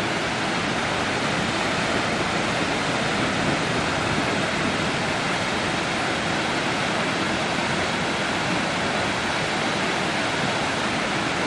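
Waterfall: a constant, even rush of falling water.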